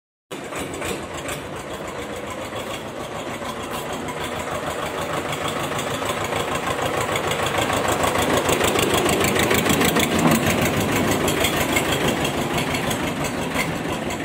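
Tractor engine running with a fast, even chugging, cutting in suddenly just after the start, growing louder through most of the stretch and easing off near the end.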